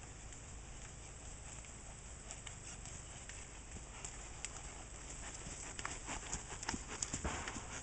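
Hooves of a walking horse on soft dirt, irregular muffled footfalls that grow louder over the last couple of seconds as the horse comes close.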